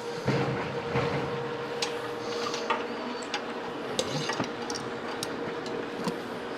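Scattered light clicks, taps and metallic clinks of tools and metal parts being handled, over a steady workshop hum with a constant tone.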